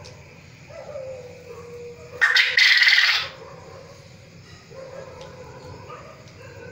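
Caged quail giving one loud, harsh call about a second long, a little after two seconds in, over a faint steady background tone.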